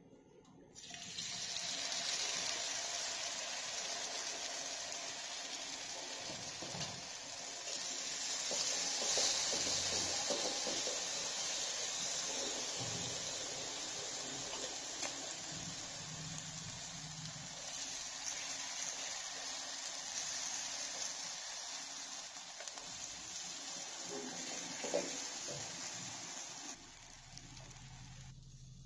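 Yogurt-marinated paneer and vegetable pieces sizzling in hot oil in a nonstick frying pan: a steady hiss that starts about a second in and cuts off abruptly near the end.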